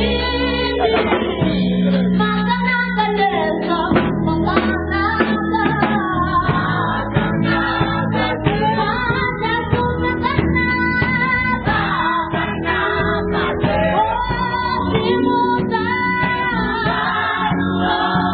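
Church choir singing with a live band of keyboard, guitar and drum kit, amplified through the hall's speakers.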